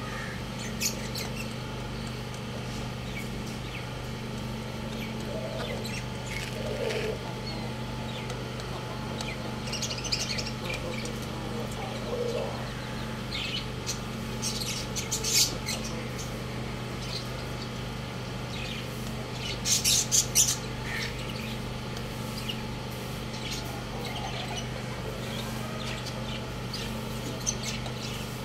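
A rooster pecking grain from a stainless steel bowl, its beak clicking against the metal in short runs, the loudest run about twenty seconds in. A steady low hum runs underneath.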